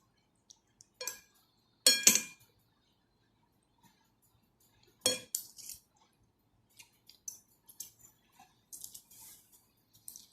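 Cutlery clinking and scraping against a soup bowl during a meal: a few separate knocks, the loudest a quick double clink about two seconds in, then lighter clicks and taps through the second half.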